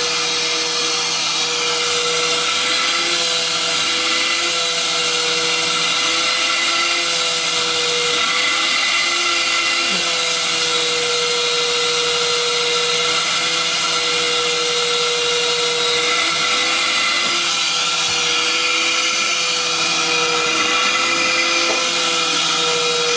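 Vacuum cleaner running steadily, its motor giving a high whine that wavers slightly in pitch over a hiss of rushing air.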